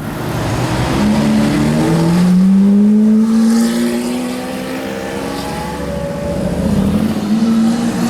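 Lamborghini Aventador's V12 engine accelerating, its note climbing steadily over the first few seconds, then holding, and climbing again near the end.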